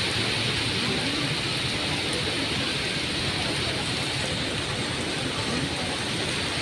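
Steady rain falling on wet paving in a strong wind: a constant, even hiss.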